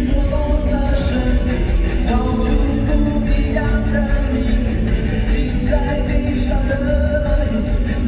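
A live concert heard through the hall's PA: a male singer sings into a microphone over amplified band music with a steady beat.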